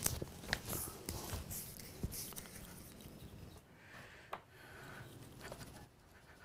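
Quiet handling sounds of oil painting: scattered soft taps and rubbing as paint mixed with liquin gel medium is worked, thinning out in the second half.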